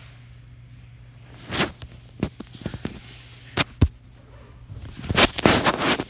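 Irregular sharp knocks and clicks over a low steady hum: a few single ones, then a rapid cluster of them near the end.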